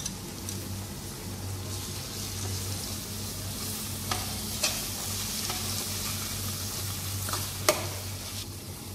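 Onion-tomato masala sizzling in an aluminium pressure cooker as it is stirred with a metal perforated ladle, which knocks against the pot four times, loudest near the end. A steady low hum runs underneath.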